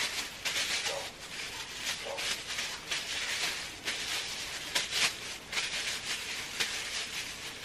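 Irregular rustling and handling noise, with scattered light clicks, as gloved hands handle hair-dye supplies.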